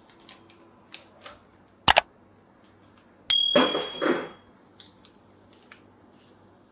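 Kitchenware being handled: a few light clicks, a sharp double knock about two seconds in, then a clink that rings briefly, followed by about a second of rustling noise.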